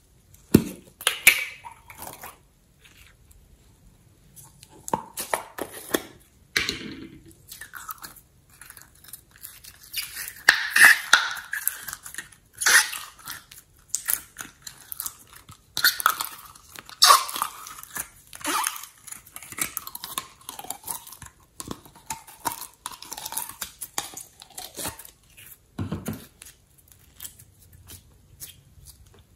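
Hands squishing and stretching clear slime, making irregular sticky crackles, clicks and pops.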